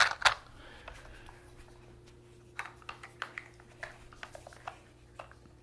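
Plastic dog treat-puzzle toy set down on the carpet with two sharp knocks at the start. A couple of seconds later comes a scatter of light plastic clicks and knocks as the German Shepherd noses at its lids and sliding bone pieces to get at the treats. A faint steady hum runs underneath.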